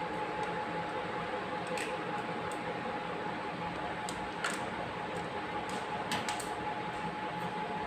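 A steady hum with a faint steady tone runs throughout. Over it come a handful of light, sharp clicks and taps from a kitten playing on a tiled floor, clustered about four and a half and six seconds in.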